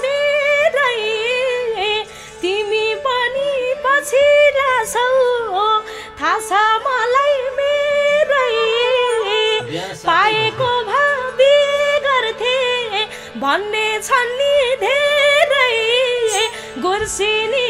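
A woman singing a Nepali dohori folk melody with quick trills and slides, over steady held keyboard chords.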